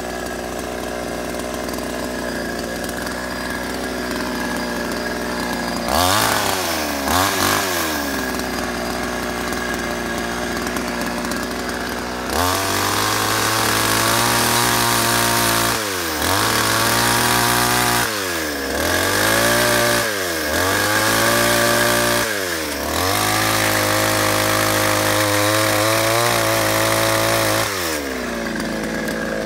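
Two-stroke chainsaw idling, revved twice about six seconds in, then held at full throttle cutting an oak limb from about twelve seconds in. It eases off briefly four times and drops back to idle near the end.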